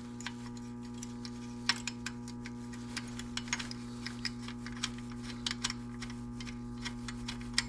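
Hand tools working on engine-bay bolts and brackets: scattered light metallic clicks and clinks, a few a second and unevenly spaced, over a steady low hum.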